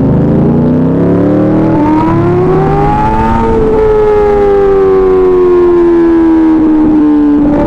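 2024 Kawasaki Ninja ZX-6R's 636 cc inline-four through an SC Project exhaust, revving up with a climbing pitch for about three seconds. It then falls slowly in pitch over about four seconds as the bike comes off the throttle.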